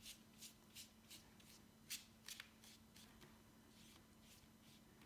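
A paintbrush stroking a coffee wash onto paper: a run of faint, short swishes, irregularly spaced, the clearest about two seconds in.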